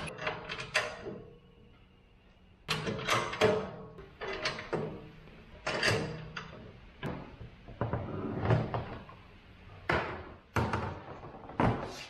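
Steel parts of a 3-point hitch sprayer frame clanking and knocking together as they are handled and fitted, in about eight separate clusters of metallic knocks that ring briefly.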